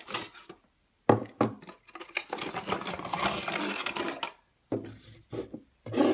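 Plastic parts of a Joby GorillaPod flexible tripod and its ball head being handled and knocked down onto a wooden desk: two sharp knocks about a second in, a couple of seconds of dense rattling and rustling as the jointed legs and packaging are handled, then more knocks near the end as the pieces are set down.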